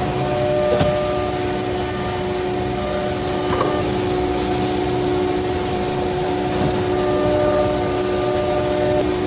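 Dual-spindle CNC nesting router running, its two spindles cutting a wood panel: a steady whine over a noisy rush, with a couple of sharp ticks about a second in and again past the middle.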